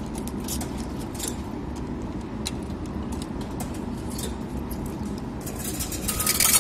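Coins clicking one at a time into a parking pay machine's coin slot, over a steady low hum. Near the end comes a louder burst of metallic clattering as coins drop through the machine into its change tray.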